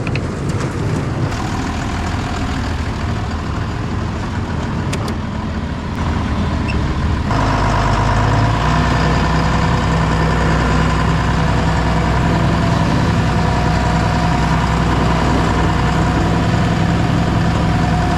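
Tractor diesel engine running steadily; about seven seconds in it gets louder and fuller and holds there, with a steady whine added.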